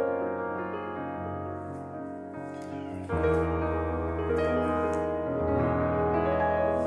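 Background piano music with held chords, a new, louder chord struck about three seconds in.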